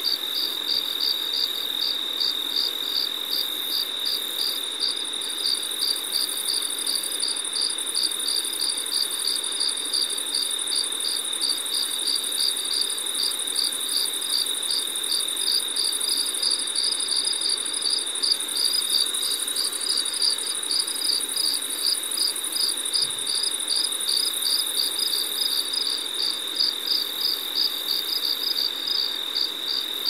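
Insects chirping, in a cricket-like chorus: a steady high trill, another chirp pulsing about twice a second just above it, and a fainter, higher buzz over both.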